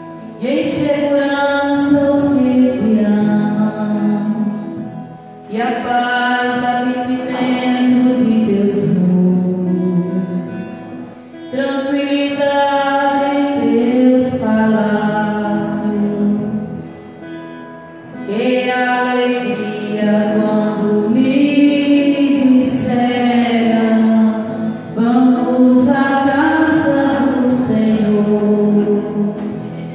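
Live sung music: a singer's voice over instrumental accompaniment, in phrases a few seconds long with short breaks between them.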